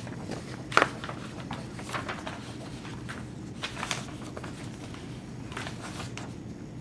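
Sheets of paper rustling as a handheld document's pages are lifted and turned, in several short rustles, the loudest about a second in, over a low steady room hum.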